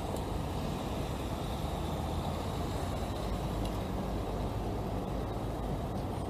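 Steady low rumble of street traffic, with no single vehicle standing out.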